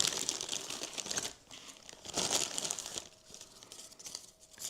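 Packaging crinkling as it is handled and opened, in two spells of crackling: one over the first second or so and another around two seconds in.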